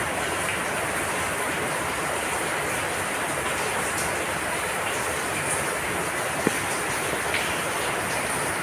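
Heavy rain heard from indoors as a steady, even hiss. A brief click sounds about six and a half seconds in.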